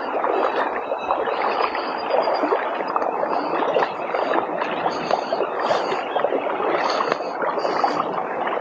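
River water rushing and gurgling steadily.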